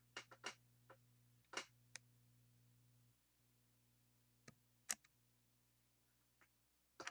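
Faint scattered clicks and ticks as a soldering iron with a homemade desoldering tip works an SMT chip component off a circuit board, over a faint low steady hum; the loudest click is about five seconds in.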